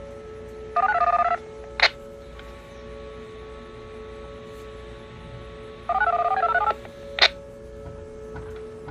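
Two quick strings of touch-tone (DTMF) beeps about five seconds apart, each string of rapid paired tones followed by a sharp click. A steady two-tone hum runs underneath.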